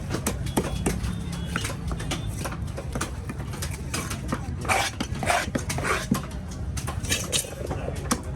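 Knife chopping and cleaving fish on a cutting block: irregular sharp knocks over a steady low market rumble.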